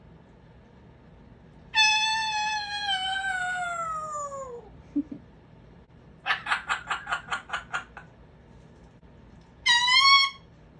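Congo African grey parrot whistling: a long whistle that slides steadily down in pitch, then a quick run of about a dozen short sharp calls, then a brief rising whistle near the end.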